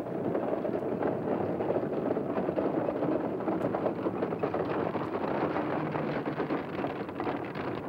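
Many horses galloping, with a horse-drawn wagon rattling along: a dense, steady clatter of hooves and wheels.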